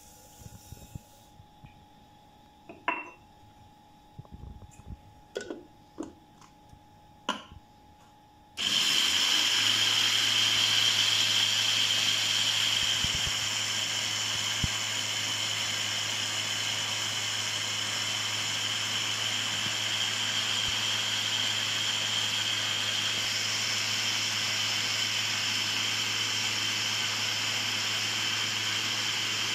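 Countertop blender motor starting suddenly after a few light clicks and knocks, then running steadily with a hum and a high whine for about twenty seconds while it beats eggs and sugar into cake batter. It is a little louder in its first few seconds.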